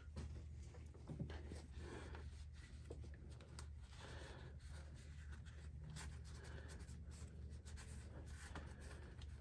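Faint rubbing of a cloth rag wiping around the distributor opening in the cylinder head, with scattered light clicks, over a steady low hum.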